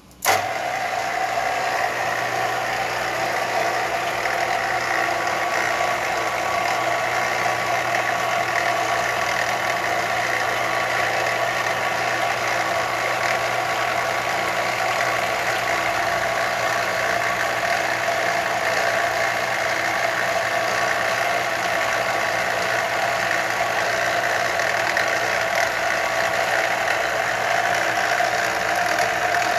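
Smithy BX-288 mill-drill switched on just after the start, its spindle motor then running steadily with a constant whine while the bit drills a blind hole for a scope-base screw in a steel rifle receiver.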